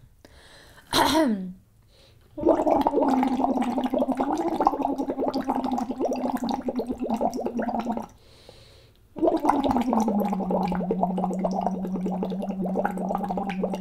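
A singer's voice sounding through a straw into a glass of water, so that the tone bubbles: a brief downward glide, then two long held bubbling tones with a pause of about a second between them, each sliding down in pitch at the start. It is water-straw phonation, a vocal warm-up exercise.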